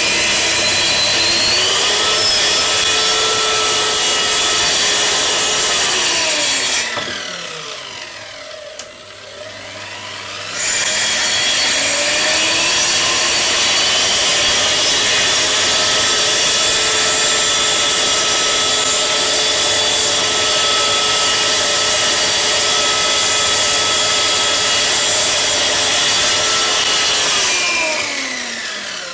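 Triton plunge track saw cutting plywood. Its motor whirs up with a rising pitch under its electronic speed control, runs steadily for about six seconds, then winds down. It is started again about ten seconds in, runs steadily through a long cut, and winds down near the end.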